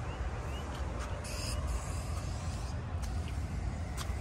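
Steady low background rumble with a few faint ticks, and a brief hiss about a second and a half in.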